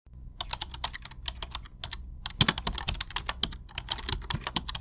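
Keyboard typing: a rapid, irregular patter of clicks, several a second, over a low steady hum.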